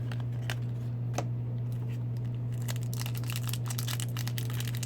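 Foil wrapper of a hockey card pack crinkling and tearing, a few light clicks at first, then dense crinkling from a little past halfway, over a steady low hum.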